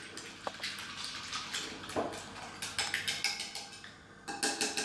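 Hand whisk beating eggs in a glass bowl, its wires clicking and scraping against the glass in quick, irregular strokes, with a fast run of strokes near the end.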